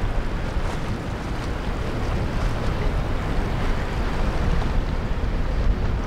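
Wind buffeting the microphone on an open, high lookout: a steady rushing noise with a gusty low rumble.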